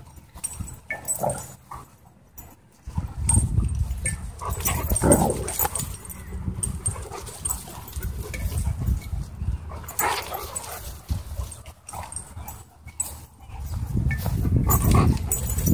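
Dogs wrestling at close range and vocalizing in short bursts of growls and yelps, about a second in, around five seconds, around ten seconds and again near the end, over a low rumble on the microphone.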